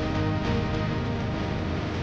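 A Samsung Galaxy A54 ringtone playing: a synthesized tune of held notes over a strong bass line, at a steady level.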